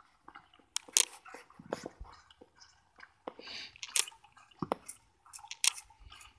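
Calf sucking milk from a nipple bottle: irregular wet smacks, slurps and clicks. The bottle is about finished.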